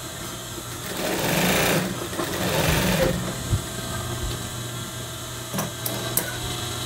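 Industrial single-needle sewing machine stitching in two short runs about a second apart, edge-stitching a welt pocket, with its motor humming steadily between runs. A few light clicks come near the end as scissors are picked up.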